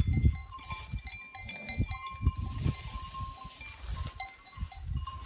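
Pasture sounds among grazing cattle: low rustling and thumps, loudest at the start, with scattered short, high ringing tones throughout.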